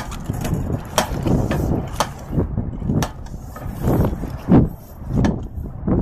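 Hand laminating roller pressed back and forth over a flexible thin-film solar panel stuck to a metal roof, working out air bubbles: short rolling scrapes with sharp clicks about once a second in the first half.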